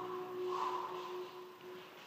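Athletic shoe soles squeaking on a rubber gym floor during boxing footwork, a drawn-out squeal with a sharper squeak about half a second in.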